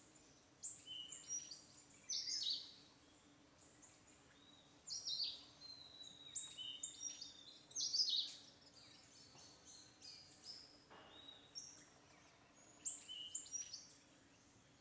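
Small birds chirping in quick clusters of short, high notes, in several bursts a few seconds apart, over a faint steady low hum.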